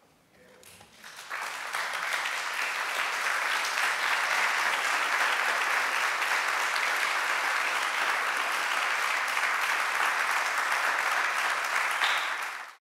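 Audience applauding at the close of a speech: the clapping swells in about a second after a brief quiet, holds steady, then stops suddenly near the end.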